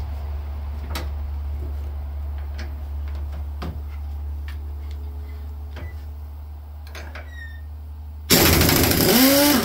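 Steady low hum with scattered light metallic clicks of tool and socket handling, then about eight seconds in a loud burst of an air impact wrench on a steering-link nut, its motor pitch sweeping, lasting just over a second.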